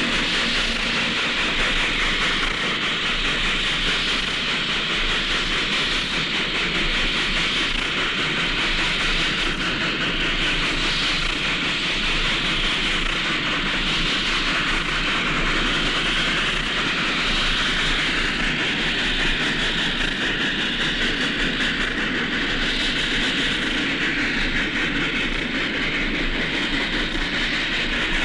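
American steam locomotive and its train running, heard on a 1956 field recording: a steady, even noise with no break or clear beat.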